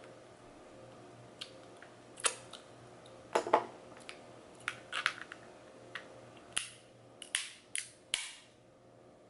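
Crab claw shells being cracked open by hand and with a metal crab cracker: a run of sharp cracks and clicks, loudest about three and a half seconds in, with a quick cluster of them near the end.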